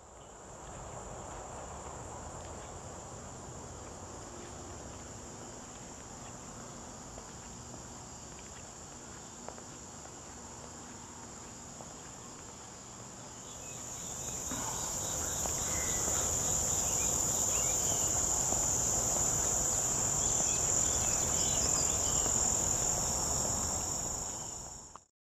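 Insects chirring in a steady high-pitched drone that grows louder a little past halfway, over a low background rumble.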